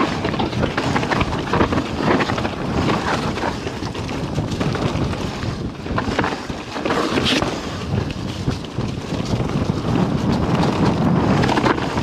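Wind rushing over the camera microphone and mountain bike tyres rolling over dirt and leaf litter on a fast singletrack descent, with a steady clatter of small knocks and rattles from the bike.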